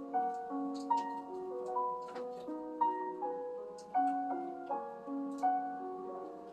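Background music: a piano melody of single sustained notes stepping up and down.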